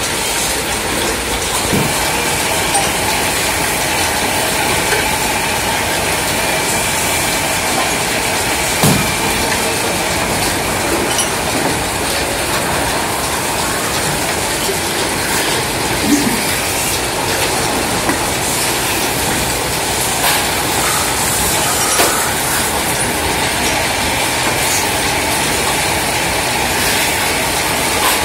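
Belt-driven metal-spinning lathes running steadily while aluminium pots are spun on them, a continuous mechanical clatter with occasional sharp metal knocks.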